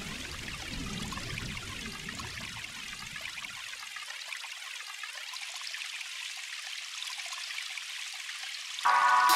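Running water sound effect, an even rushing hiss whose low end is filtered away about three and a half seconds in. Just before the end, music with steady keyboard-like tones comes in.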